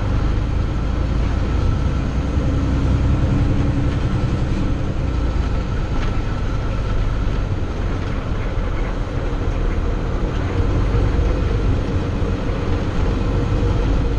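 Snow-removal plow truck driving, its engine and road noise heard from inside the cab as a steady low rumble.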